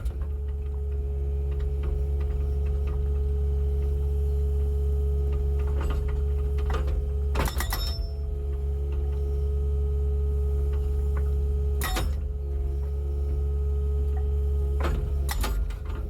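Kubota KX080 mini excavator's diesel engine running steadily, heard inside the cab, while its hydraulic breaker hammer works with a fast mechanical ticking. Sharp knocks come about six, twelve and fifteen seconds in.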